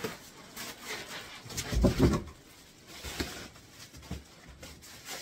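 A cardboard box and its packing material being handled while an appliance is lifted out: irregular rustling and scraping, with a louder low thump about two seconds in and a couple of lighter knocks after.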